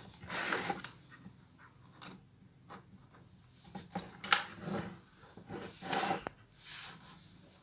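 Light handling noise as a multimeter and its test leads are set up on an opened phone charger: scattered rubs, scrapes and a few soft clicks, with one sharper click near the end.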